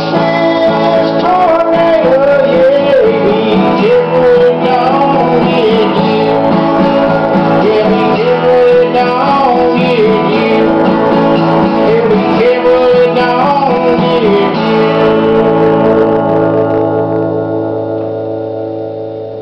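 Acoustic guitar strumming under a wavering melody line with bends. About three-quarters of the way through, the melody stops and the final chord rings out and slowly fades: the end of the song.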